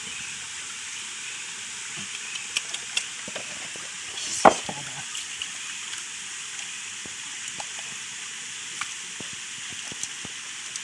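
Steady rush of a shallow stream running over rocks, with a few sharp clicks and knocks of hard objects against rock, the loudest a little after four seconds in.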